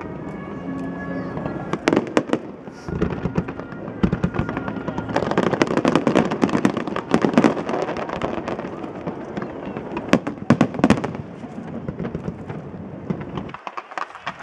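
Aerial fireworks going off in quick, irregular bangs and crackles, thickening into a dense run of crackling about five seconds in, with music playing underneath.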